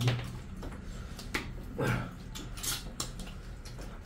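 Eating by hand from steel plates: scattered short clicks and scrapes of fingers on the metal plates mixed with wet mouth sounds of chewing chicken curry and rice, a few louder than the rest, over a low steady hum.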